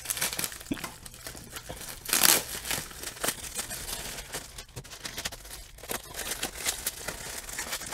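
Plastic packaging wrap crinkling and rustling as it is cut with scissors and pulled open, with a louder tearing rustle about two seconds in.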